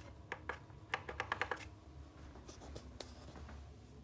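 A run of light clicks and taps, most of them in a quick cluster about a second in, from a hand working at an electricity meter and its breaker switch after a power cut.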